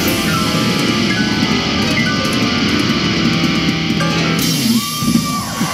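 Loud rock music with electric guitar and drums, which stops abruptly about four and a half seconds in and gives way to voices.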